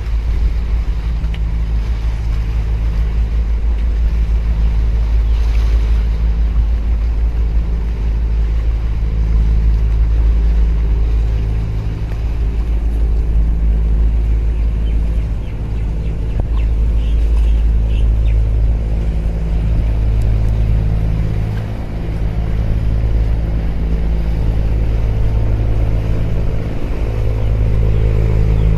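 Deep steady drone from a large container ship's machinery passing close by. Several humming tones swell and fade over a heavy wind rumble on the microphone.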